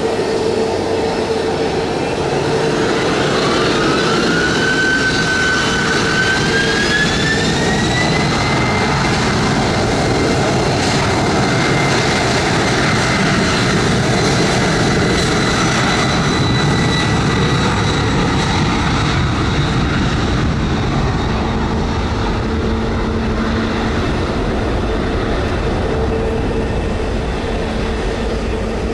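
Air Canada Cargo Boeing 767-300 freighter's two jet engines spooling up for takeoff. A whine rises in pitch over the first several seconds and then holds steady above a loud, steady jet rush as the aircraft rolls down the runway and lifts off.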